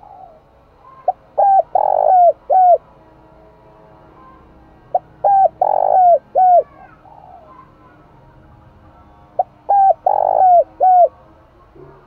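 Caged decoy spotted dove cooing its song three times, about four seconds apart. Each phrase is a run of short, falling coos with one longer coo in the middle.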